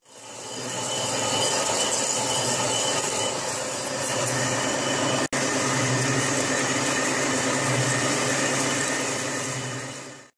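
1935 Reed Prentice engine lathe running and turning a large steel disc, the cutting tool peeling off curled chips: a steady machining noise over a low motor hum, broken by a split-second gap about five seconds in.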